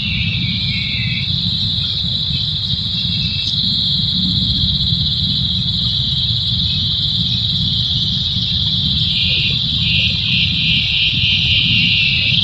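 Insects buzzing in a continuous high-pitched drone, with a pulsing chirr joining slightly lower in pitch near the end. A steady low rumble runs underneath.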